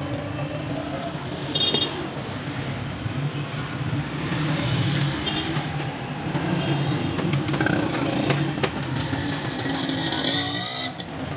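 Road traffic going by: a steady, uneven motor-vehicle rumble, with a whine falling in pitch near the end as a vehicle passes.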